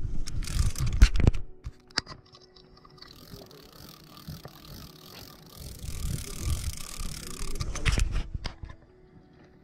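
Fishing reel being cranked, a whirring gear sound, as a hooked bluegill is reeled up. Low rumbles and sharp knocks from wind and from handling the rod come at the start and again near the end.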